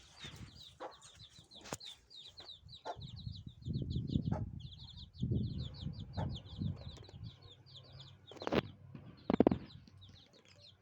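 Newborn baby birds cheeping in a rapid, continuous series of short high chirps. Low rumbling handling noise runs under them, and two loud knocks come near the end.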